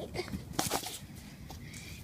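Handling noise from a fidget spinner and its loose parts: a few light clicks and a brief scraping rustle about two-thirds of a second in.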